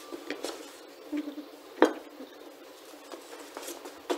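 Metal clinks and knocks as the John Deere 4755's studded wheel hub is lowered onto its new bearing on the spindle housing and turned to seat, with one sharp clunk a little under two seconds in.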